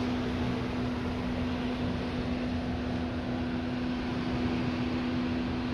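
A steady machine hum holding one constant low tone with overtones, over an even rushing noise.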